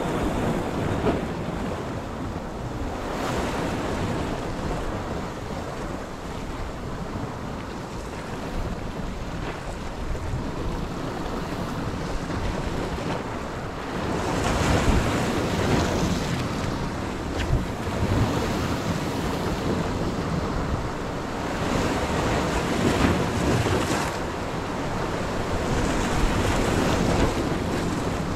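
Sea surf breaking and washing over rocks, swelling louder in surges every several seconds, with wind buffeting the microphone.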